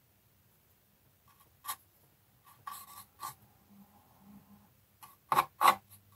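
Small paint bottle and brush being handled, with a few light clicks and scrapes, then brisk, scratchy brush strokes on the test card's parts near the end.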